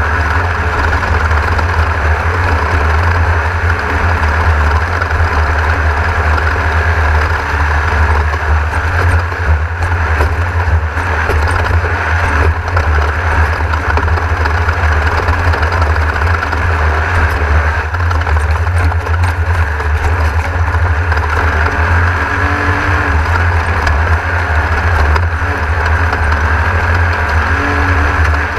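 Class 1600 off-road race car running at race pace, heard from inside the car: a loud, steady mix of engine and driving noise.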